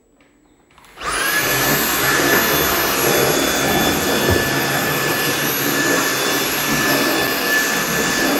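Cordless stick vacuum cleaner switching on about a second in, its motor spinning up quickly to a steady high whine and running on over a tiled floor.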